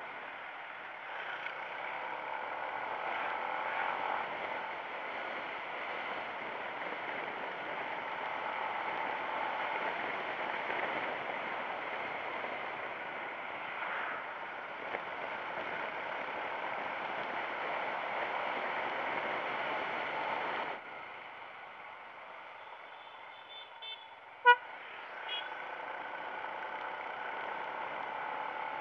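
Steady rush of wind, road and engine noise from a Yamaha MX King motorcycle riding along, turning quieter about three-quarters of the way through. Near the end, one short horn beep, the loudest sound.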